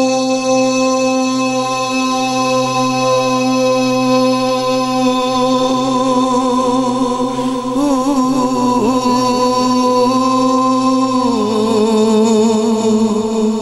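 Male naat reciter singing unaccompanied, holding one long drawn-out note that wavers in the middle and steps down in pitch about eleven seconds in.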